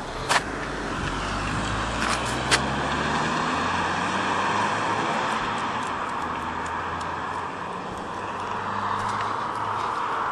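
A car engine running, its low hum slowly rising in pitch over the first few seconds, under a steady rushing noise, with two sharp clicks near the start.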